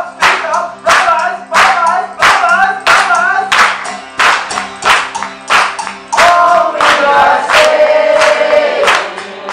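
Group of voices singing together to an acoustic guitar, with hand claps on every beat, about three every two seconds. About six seconds in, the voices hold one long note while the clapping goes on.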